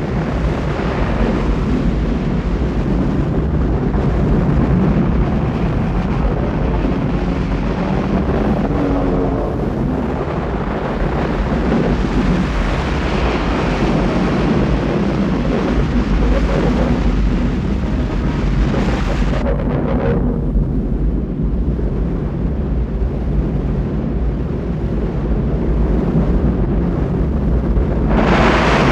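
Deep, continuous underwater rumbling with rushing, churning water noise, film sound effects for the sunken liner breaking loose and rising. The hissing upper part dies away about twenty seconds in, leaving the low rumble, and a louder rush swells back near the end.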